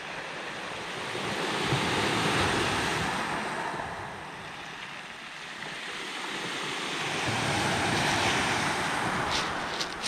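Small sea waves washing up on a pebble beach, the surf swelling twice in slow surges, with a few sharp clicks near the end.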